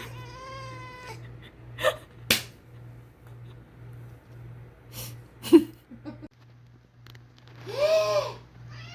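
Domestic cat meowing: a long, drawn-out meow that fades out about a second in, then a few short sharp clicks, and near the end a louder call that rises and falls, running straight into another long meow.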